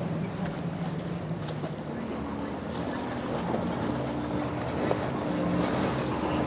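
Outboard-powered center-console boats running past at speed: a steady multi-engine drone whose pitch shifts about two seconds in as a second boat takes over, with wind on the microphone. The later boat is a Pro-Line running on triple Suzuki 350 outboards.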